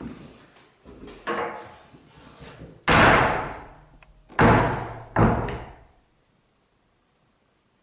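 Wooden door banging shut several times inside a wooden hut, each bang ringing on in the room. The three loudest bangs come about three, four and a half and five seconds in, and the sound cuts off suddenly about six seconds in.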